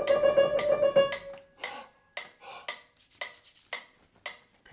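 Piano playing a fast trill that breaks off about a second in. After it come faint, separate light taps, about two a second.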